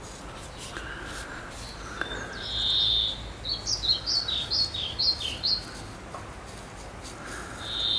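Songbird singing: a held high whistle, then a quick run of about eight short falling notes, with the whistle coming again near the end.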